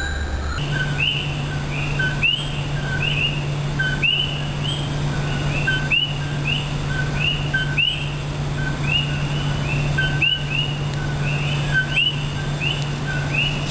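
Chorus of several male coqui frogs (Eleutherodactylus coqui) calling, each call the two-note "co-QUI": a short flat note followed by a quick rising whistle, with the calls of different frogs overlapping more than once a second. A steady low hum runs underneath.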